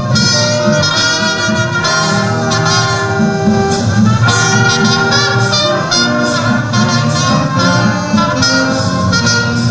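Instrumental music with long held melody notes over a full low accompaniment.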